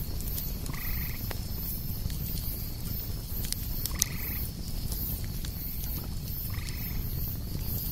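An animal calling three times, each call short and pitched, about three seconds apart, over a steady low rumble.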